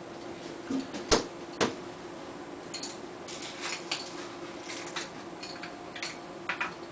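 Plastic nutrient bottle being handled: two sharp knocks about a second in, then light clicks and rustles as its cap is worked off. A steady low hum runs underneath.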